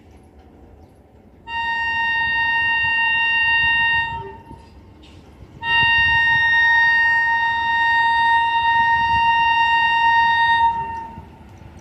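WAG9 electric locomotive's horn sounding two long blasts on one steady high tone: the first about two and a half seconds long, the second about five seconds. A low rumble of the approaching container train runs beneath them.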